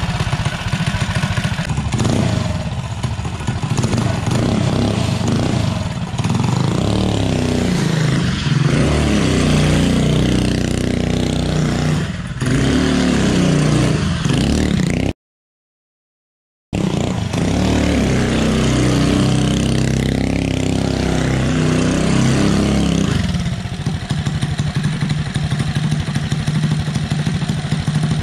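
Predator 212 single-cylinder four-stroke engine on a drift trike, revving up and down as the trike is ridden, its pitch rising and falling. The sound cuts out for about a second and a half midway, and near the end the engine settles to a steadier, lower idle. Its Mikuni VM22 carburettor has just been rejetted with a 160 main jet, and it takes throttle without bogging.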